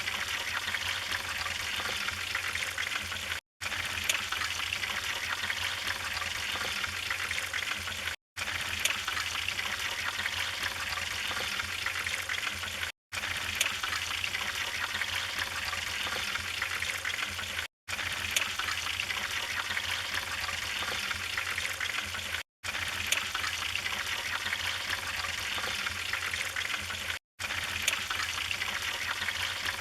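Wood fire burning in a fireplace: a steady hiss with small crackles and pops. The sound drops out to silence for a split second about every five seconds, where a short recording loops.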